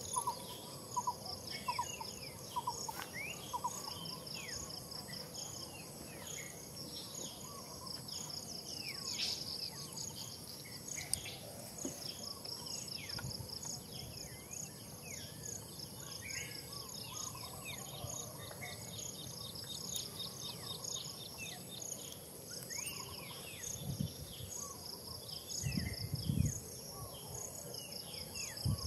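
Insects trilling in an even, pulsing rhythm over a steady high hiss, with birds chirping in short falling calls throughout. A few low bumps near the end.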